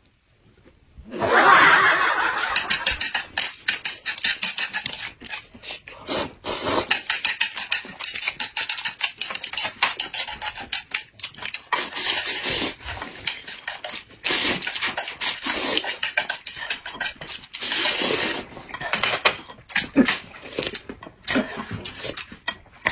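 Close-up eating sounds: chopsticks rapidly scraping and clicking against a plate as food is shovelled into the mouth, with chewing and slurping.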